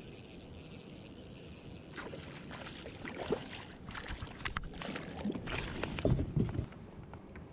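Insects trill steadily in the background, then a hooked trout splashes at the surface beside the kayak. After that come knocks and bumps against the plastic kayak hull, loudest about six seconds in.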